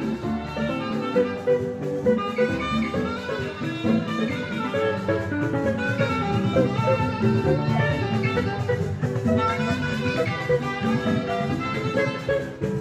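Live band music: saxophones playing a melody over electric guitar, continuous and loud.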